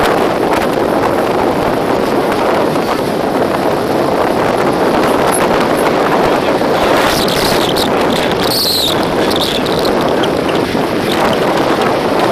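Strong gale-force wind blowing across the microphone in a loud, steady rush. A few brief high-pitched sounds stand out about seven to nine seconds in.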